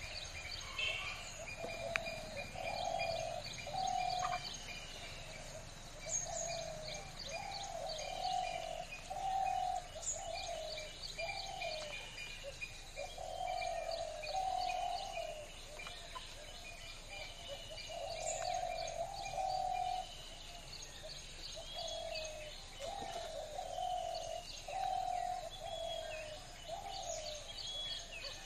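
Wild birds calling: a steady run of short, low cooing notes in groups, with high chirps and twitters from other birds above them.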